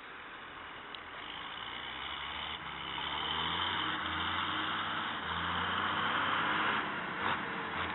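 John Deere tractor's six-cylinder diesel engine running under load as it tows a slurry tanker toward the microphone, with a steady low drone that grows gradually louder as it approaches.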